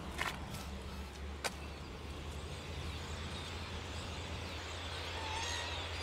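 Outdoor ambience: a steady low rumble, two sharp clicks in the first second and a half, and a few faint bird chirps near the end.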